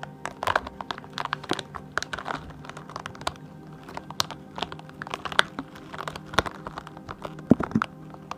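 Silicone and rubber objects being tapped, pressed and handled for ASMR, giving a string of irregular soft clicks, taps and crinkles, with a louder pair of taps a little before the end. Soft steady background music runs underneath.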